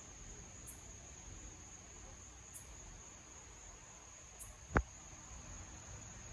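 Night insects trilling steadily at a high pitch, with a shorter, higher chirp repeating about every two seconds. A single sharp thump about three-quarters of the way through.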